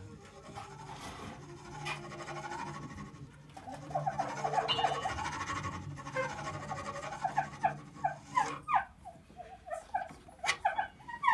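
Free-improvised jazz played live by a small acoustic group of reeds, double bass and piano. Short, squeaking notes bend up and down over a held low note, growing busier from about four seconds in.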